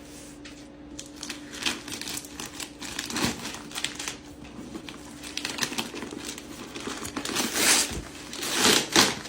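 Shipping packaging crinkling and rustling as a parcel is opened by hand, with louder ripping sounds near the end.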